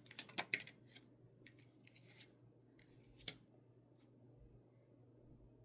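Tarot cards being handled and drawn: a quick run of crisp card clicks and flicks in the first second, then one sharp click a little over three seconds in.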